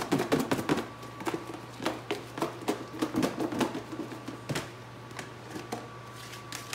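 Seasoned lamb chops knocking and sliding inside a lidded plastic food-storage container as it is shaken to coat them in seasoning: a fast, irregular clatter of knocks that thins out after about four seconds.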